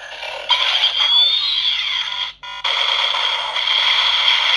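Bandai DX Attache Shotgun toy playing its standby sound through its small built-in speaker: a thin, tinny electronic music loop with falling and rising synth sweeps and a short break just over two seconds in, the waiting sound after a progress key is inserted.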